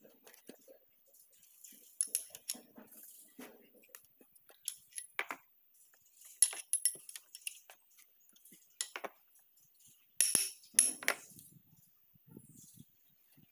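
Sharp metallic clinks and taps of steel hand tools and parts against the crankshaft and connecting rod caps of a Perkins diesel engine block, scattered and irregular, with the loudest pair about ten seconds in.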